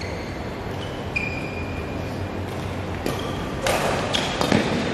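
Badminton rally: short high squeaks of court shoes on the floor, then a run of sharp racket strikes on the shuttlecock starting about three seconds in, four in under two seconds.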